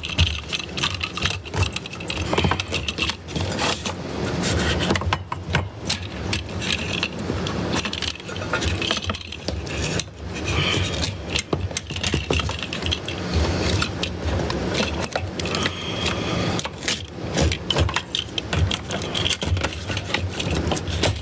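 Irregular clinks, clicks and rattles of metal and plastic parts being handled as the fuel pump assembly is fitted back into the fuel tank.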